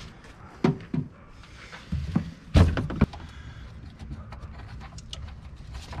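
Handling knocks and thunks at the mail truck's engine bay as the air filter change begins, with several sharp knocks, the loudest about two and a half seconds in, followed by lighter clicks.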